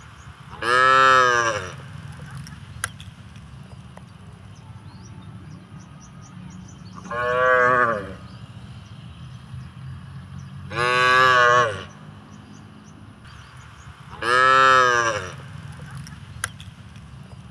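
Cows mooing: four calls about a second long each, a few seconds apart, each rising and then falling in pitch, over a steady low background noise.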